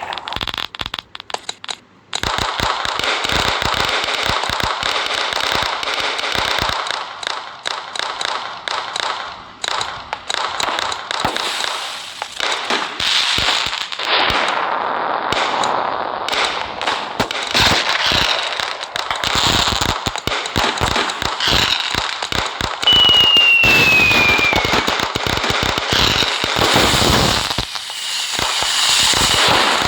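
Fireworks and firecrackers going off in a dense, rapid crackle of pops. A short falling whistle is heard a little past two-thirds of the way through.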